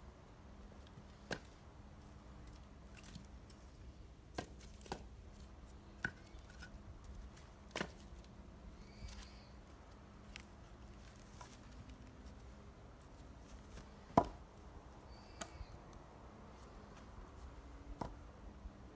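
An axe splitting firewood: one sharp, loud chop about three-quarters of the way through, among scattered lighter knocks and clacks of wood.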